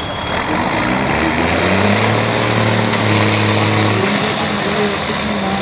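Trial truck's diesel engine working hard under load as the truck crawls through deep mud, holding a steady note for a couple of seconds before easing off about four seconds in.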